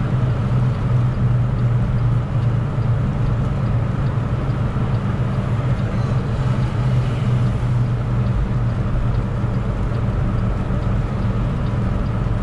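Semi truck's diesel engine running steadily, heard from inside the cab as a low drone along with road noise while driving.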